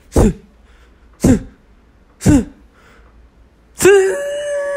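Three hard sniffs through a congested, allergy-blocked nose, about a second apart, each falling in pitch. About four seconds in, a voice breaks into a long, held wail of frustration.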